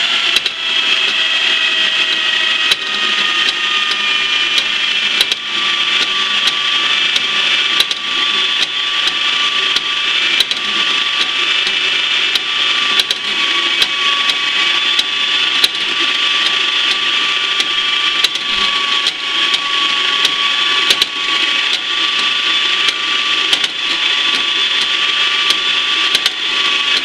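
Portable bandsaw with a 3/4-inch, 18-tooth blade running at slow speed, cutting through a stainless steel plate under its own feed: a steady motor and blade whine over a cutting hiss, with a light tick about once a second. The whine settles slightly lower in pitch over the first few seconds.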